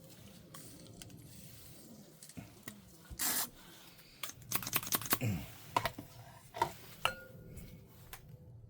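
Light clicks and taps with a short rustle, from small plastic printhead parts and paper towel being handled during cleaning; the clicks come in a cluster about halfway through.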